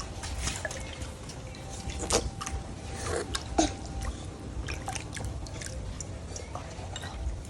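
Water dripping and splashing lightly, in scattered small drips and clicks.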